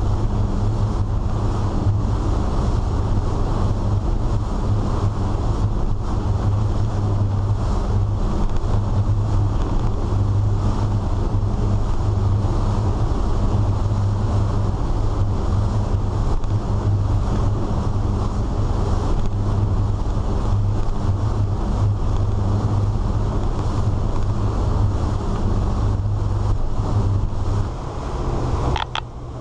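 A Sea Ray 34 cruiser's engines running at steady speed, a constant low drone, mixed with wind and the rush of water from the rough lake. Near the end the sound dips and a few sharp knocks come through.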